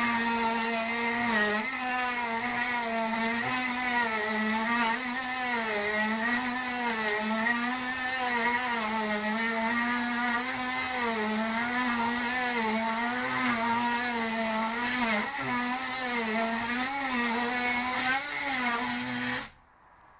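RIDGID JobMax oscillating multi-tool with a wood-cutting blade, cutting wood: a steady buzz whose pitch wavers and dips again and again as the blade is pressed into the wood. It stops abruptly near the end.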